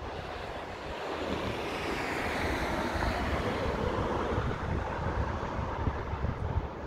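A vehicle passing on the road, its noise swelling over the first few seconds and sliding down in pitch, with wind rumbling on the microphone.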